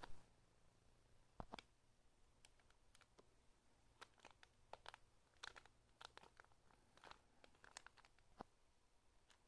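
Faint, irregular crinkling and crackling of a clear plastic packaging bag around a squishy toy as it is handled, with a louder handling bump at the very start.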